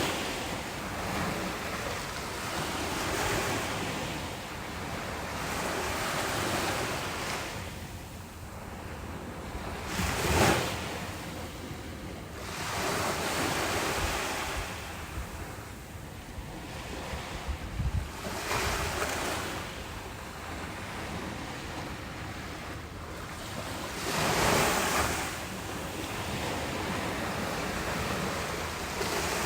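Small ocean waves washing ashore, the surf rising and falling every few seconds, with louder breakers about 10 seconds in and near 25 seconds, under a soft wind.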